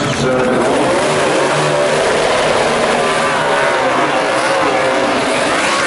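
A NASCAR Toyota Camry race car's V8 engine revving hard through a burnout, its pitch swinging up and down as the rear tyres spin.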